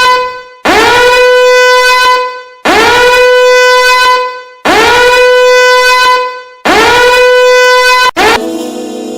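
Loud horn blasts repeating every two seconds. Each one swoops up into a steady high tone and is held about a second and a half. Near the end it cuts to a different, lower and steadier droning tone.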